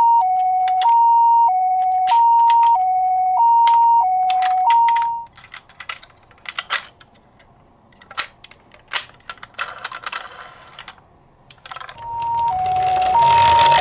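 Toy ambulance's electronic two-tone hi-lo siren, switching between its two notes about every two-thirds of a second, cuts off about five seconds in. A run of small clicks and taps follows, and the siren starts again near the end over a rushing, rumbling noise.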